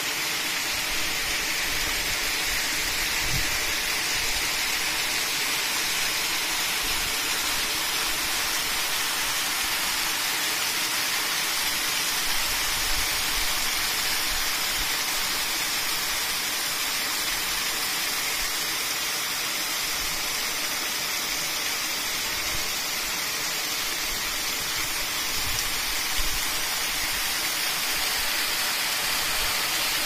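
Steady rush of a waterfall and a mountain stream cascading over rocks: an unbroken hiss of falling, splashing water.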